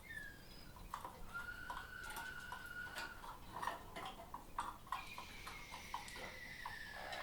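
Harzer Roller canaries singing: long, steady, fairly low whistled notes that lead into a rolling trill near the end, with many light clicks and taps scattered through.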